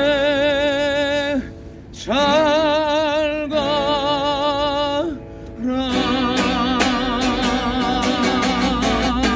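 A man sings long, wavering held notes in three phrases with short breaks between them. From about six seconds in, a strummed acoustic guitar comes in with a steady rhythm under his voice.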